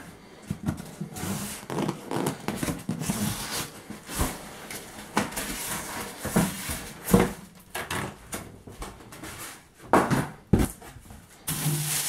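Polystyrene foam packing insert and cardboard box handled by hand while unpacking a microwave oven: irregular rubbing and scraping with scattered knocks, the sharpest around the middle and near the end.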